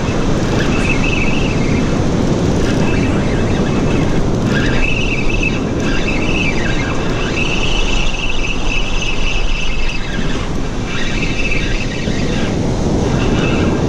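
Fishing reel whining in stretches as line is wound in against hooked fish, over a steady rush of breaking surf.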